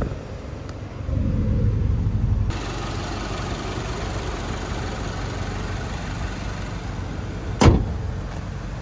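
Toyota GR86's 2.4-litre flat-four boxer engine running, with a short louder low rumble about a second in, then idling steadily. A single sharp knock comes near the end.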